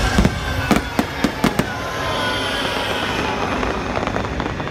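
Aerial fireworks shells bursting in quick succession: about six sharp bangs in the first second and a half, then a steadier din of bursts and hiss.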